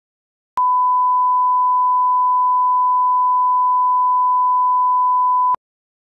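A 1 kHz line-up test tone, the reference tone that goes with colour bars at the head of a programme. It is a single pure, steady beep starting about half a second in and lasting about five seconds, then cut off abruptly, with a slight click as it switches on and off.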